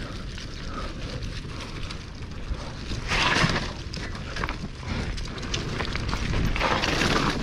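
Mountain bike descending a dirt trail strewn with dry leaves: wind buffeting the microphone over tyre noise on dirt and leaves, with two louder hissing surges, about three seconds in and near the end.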